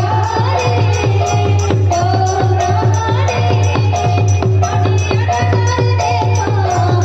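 Folk devotional music: a held, gliding melody line over a steady drum beat and jingling, rattling percussion.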